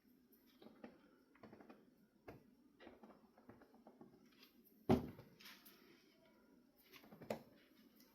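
Scattered light clicks and knocks of objects being handled, with a louder knock about five seconds in and another a little after seven.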